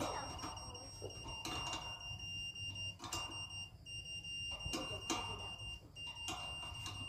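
Satellite finder meter giving a steady high-pitched beep tone while the dish is aimed, breaking off briefly a few times. Several sharp metal knocks and clanks come from handling the dish mount.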